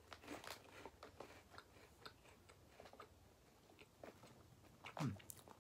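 Faint, irregular crunching of a person chewing a deep dish pizza cheese curl, with a short falling hum near the end.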